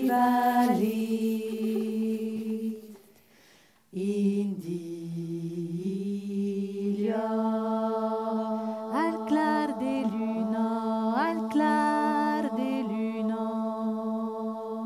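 Women's voices singing Occitan polyphony a cappella: a low held drone, with other voices holding notes above it and sliding up into new notes. The singing breaks off about three seconds in and comes back about a second later.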